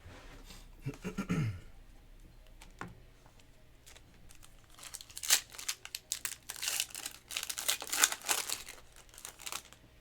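A sports card pack wrapper being torn open and crinkled by hand, a run of irregular crackles and rips through the second half.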